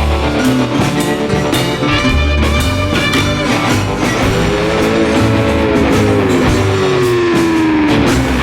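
Background rock music with electric guitar, bending sustained guitar notes over a bass and drum beat.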